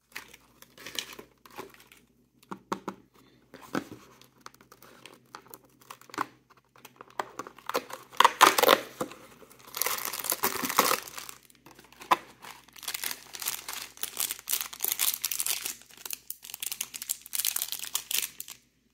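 Toy wrapping crinkling and tearing as a small figure is unwrapped by hand: a run of irregular crackles and rustles that grows louder and busier about eight seconds in.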